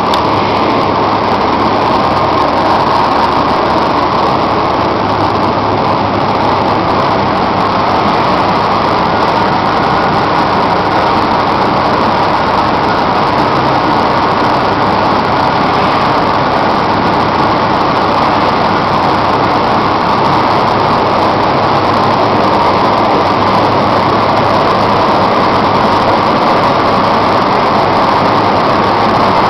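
Coffee dryer running: a loud, steady machine noise that does not change.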